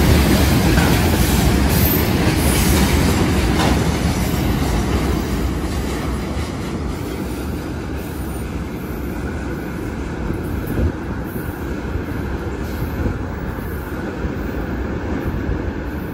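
Train wagons rolling past on the track, a steady rolling rumble that is loudest at first and fades gradually as the train moves away.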